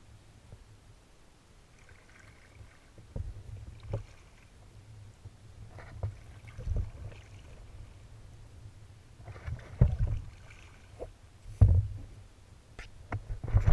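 Sea kayak being paddled: paddle blades dipping and splashing in the water, with dull knocks every second or two, loudest near the end, over a low rumble on the deck-mounted camera.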